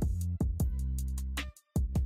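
Background music with a beat: sustained bass notes under regular drum hits, with a brief break about three-quarters of the way through.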